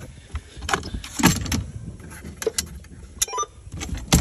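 Handling noise on a fiberglass boat console: irregular clicks, knocks and rubbing as a console hatch with a clear plastic panel is moved, with a short squeak about three seconds in and a sharp knock near the end.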